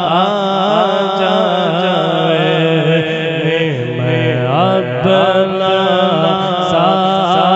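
A man's solo voice singing a Punjabi naat (a devotional poem praising the Prophet Muhammad) into a microphone, in long, slowly gliding melodic lines. A steady low drone runs underneath and drops in pitch about four seconds in.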